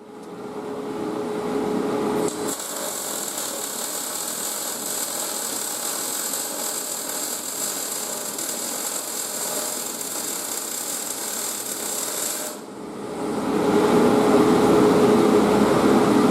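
Welding on the inside of a steel boat's transom: a loud, steady hissing noise that changes character about two seconds in, dips briefly near the end, then comes back louder.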